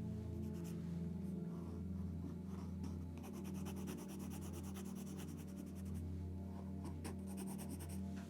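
Quick sketching strokes scratching on paper, in short runs of rapid back-and-forth marks, over a steady low background drone.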